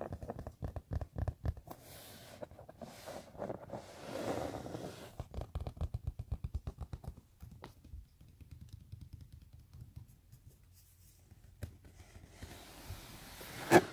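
Fingers scratching on the back of a leather couch in quick runs of short strokes, busiest in the first half and then more scattered. Near the end there is one sharp knock, the loudest sound.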